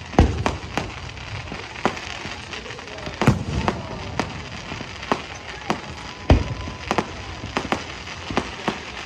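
Aerial firework shells bursting overhead, a steady run of sharp bangs at irregular intervals. Heavier booms come just after the start, about three seconds in and about six seconds in.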